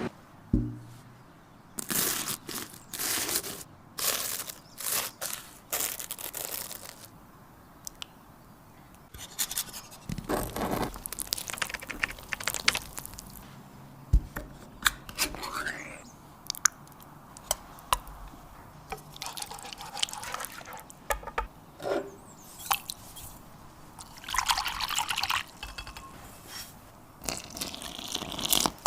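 Cake-preparation kitchen handling: a long run of sharp taps and clicks of utensils and containers, with short stretches of scraping and a liquid sound.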